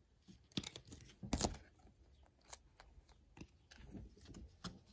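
Faint handling of trading cards and rigid plastic top loaders: scattered light clicks and taps, with a sharper knock about a second and a half in, as a card is slid into a top loader.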